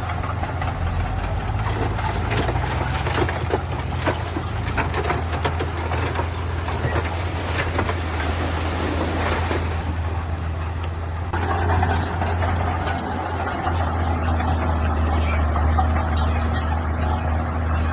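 Heavy diesel construction machinery running steadily, with scattered clanks and rattles. The engine note grows louder and fuller about eleven seconds in.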